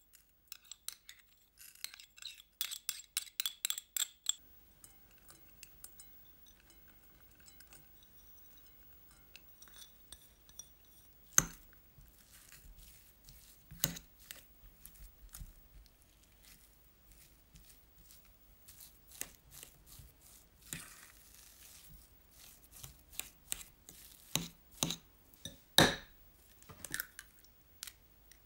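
Light clinks and taps of hard objects, like glass or crockery being handled. A quick run of ringing clinks comes in the first few seconds, followed by scattered knocks, the sharpest about eleven and twenty-six seconds in.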